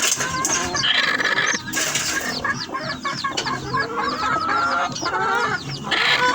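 A flock of chickens clucking, with a crowd of chicks giving rapid, high peeps through most of it.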